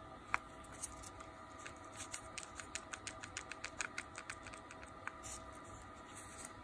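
Angle head of a Bosch GWB12V-10 cordless angle drill being turned by hand on its housing, giving a quick run of small mechanical clicks, about six a second, for a couple of seconds in the middle, with a single sharper click near the start.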